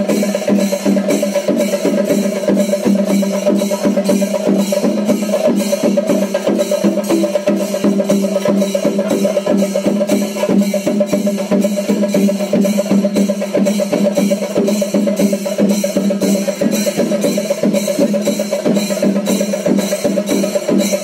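A drum ensemble playing a loud, steady rhythm of evenly spaced strokes, about three a second, over a steady droning tone.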